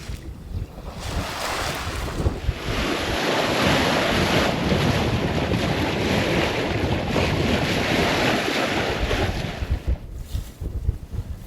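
Waves and rushing sea water with wind buffeting the microphone; the rush builds about two and a half seconds in and fades near the end.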